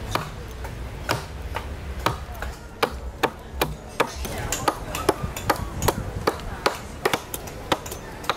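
Short-handled carving adze chopping into a block of spalted sycamore, hollowing out the cup: a steady run of sharp chops, about two to three a second, coming a little quicker after about three seconds.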